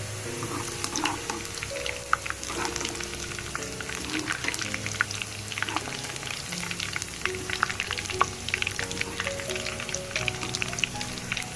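Food frying in hot oil: a steady sizzle with many irregular pops and crackles, over background music.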